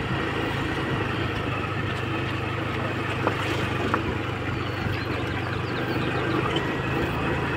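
A motor vehicle's engine running steadily, with a low, even hum.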